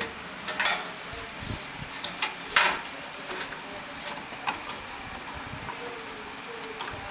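Scattered light clicks and clinks of hands handling metal parts and screws inside a desktop computer case, the loudest about two and a half seconds in.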